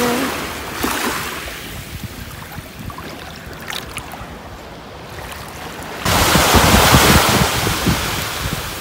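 Small waves washing in and out over shallow water at a sandy shoreline, fairly quiet at first. About six seconds in, the sound jumps to louder surf with wind rumbling on the microphone.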